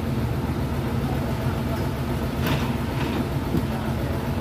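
Tadano TS-61LN truck crane's engine running steadily at idle as it is readied to drive out, with one brief sharp noise about halfway through.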